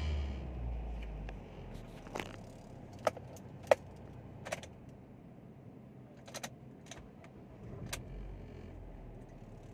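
Car engine revving briefly and settling back at the start, then about seven sharp, irregular clicks and taps spread over the next several seconds, with a small engine swell near the end.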